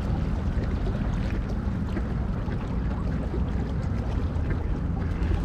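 Steady low rumble of lakeside outdoor ambience, even throughout.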